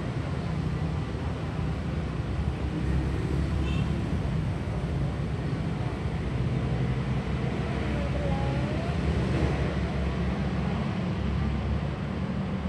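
Steady low rumble of outdoor street ambience with motor traffic, and a faint short high chirp about four seconds in.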